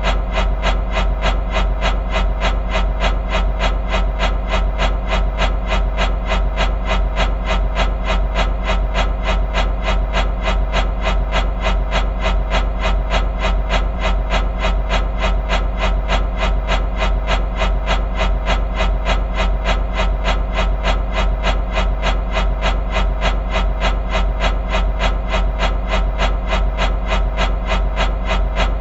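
Fan blades whooshing in a fast, even rhythm over a steady low hum.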